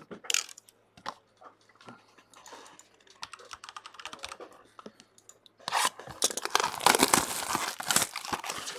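Plastic shrink wrap being torn and crinkled off a sealed trading-card booster box: a few light clicks and handling noises at first, then loud, dense crackling from about six seconds in.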